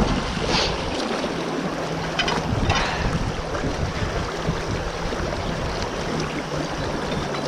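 Shallow stream water rushing over rocks, with a few short splashes from boots wading and stirring the streambed in front of a scoop net, about half a second in and again two to three seconds in.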